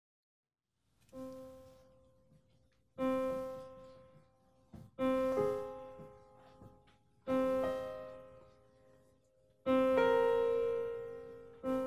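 Solo piano introduction: six sustained chords, struck about two seconds apart starting about a second in, each left to ring and fade before the next.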